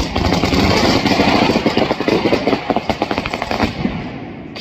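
A traca, a Valencian string of small firecrackers, going off in a fast, continuous crackle of pops, thinning out and fading near the end.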